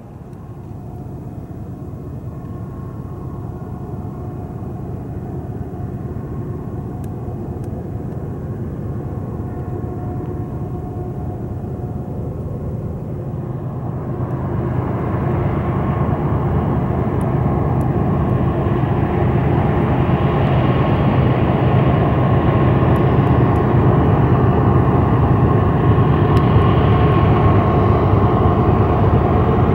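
Diesel locomotives hauling a double-stack intermodal freight train, their engines droning with a few steady tones and growing steadily louder as the train approaches. The drone gets louder and fuller about halfway through.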